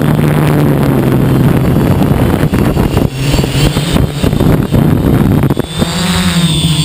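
Hexacopter's electric motors and propellers humming, heard from the camera on board, with wind rushing over the microphone in flight. Near the end the wind noise falls away and the motor pitch dips and rises as the throttle changes.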